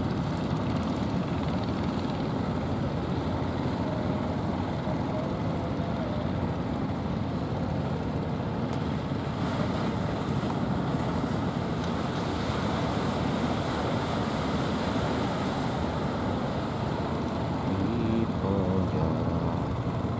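Engines of a fleet of outrigger fishing boats running steadily offshore, mixed with small surf washing in and wind on the microphone.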